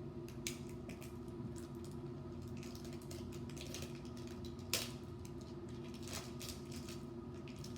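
Irregular clicks and rustles of plastic packaging being handled and opened, with one sharper click about five seconds in, over a steady low hum.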